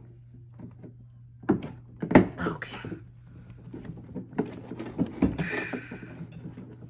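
Knocks, clicks and scraping of hard plastic as a long rod is pushed and twisted into the molded plastic body of a Step2 Whisper Cruiser push car, the loudest knock about two seconds in.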